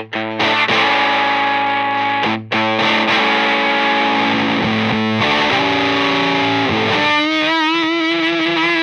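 Nash electric guitar played through a Spruce Effects Black Friday one-knob silicon fuzz pedal into a Benson Monarch Reverb amp: sustained, heavily fuzzed notes ringing out, with a short break about two and a half seconds in. About seven seconds in, a single note is held with an even vibrato.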